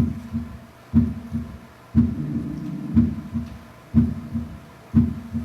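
Recorded heart sounds with an S3 gallop: about one beat a second, each a strong low thump followed closely by two softer ones in a three-part 'tuntata' rhythm. The extra third sound comes in early diastole, during rapid ventricular filling. One beat about two seconds in trails a longer sustained sound.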